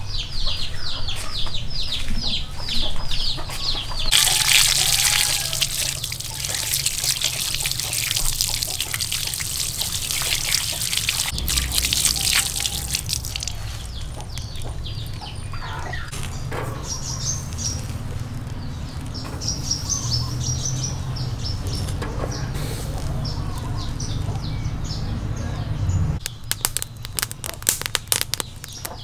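Water splashing and pouring as river mussel shells are rinsed by hand, with birds chirping: a quick run of falling calls at the start and scattered chirps later. Near the end, a wood fire crackles and snaps under the grill.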